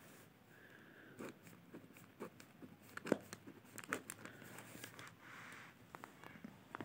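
Quiet sounds of writing in a paper notebook: a ballpoint pen stroking across the page and the paper rustling under the hand. Irregular light taps and clicks run through it, the loudest about three seconds in.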